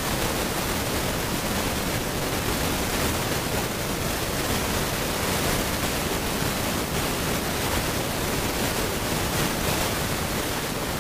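Steady rush of wind noise on the microphone of a motorcycle riding at road speed: an even hiss with no distinct engine note showing through.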